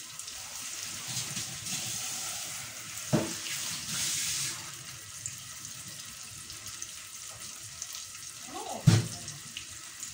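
Onions and garlic frying in oil in a small pan, a steady sizzling hiss that brightens for a moment about four seconds in. Two dull knocks cut through it, about three seconds in and near the end.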